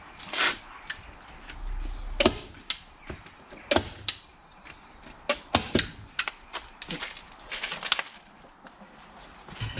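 Hand staple gun firing staples into tarpaulin on a chicken run: a string of sharp clacks at irregular intervals, a dozen or so, with the tarp rustling between them.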